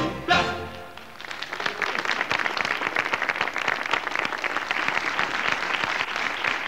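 A live band's final two chords ring out and fade, then a studio audience breaks into applause about a second in, which builds and keeps going.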